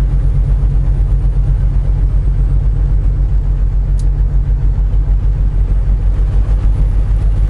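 Semi truck's diesel engine pulling in a low gear up a grade, heard as a steady low drone with a fast, even pulse.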